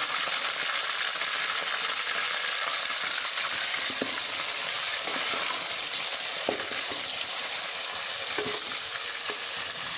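Raw chicken pieces sizzling steadily in hot oil with fried onions and garlic-ginger paste in a metal pot as they are browned, stirred with a spoon. There are a few light knocks of the spoon against the pot.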